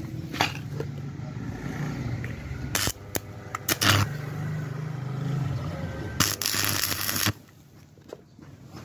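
Electric arc welding of a steel sprocket onto a bicycle chainring: crackling, spitting arc with short sharp bursts, the longest and loudest about six to seven seconds in, over a low steady hum. Everything cuts off suddenly just after seven seconds.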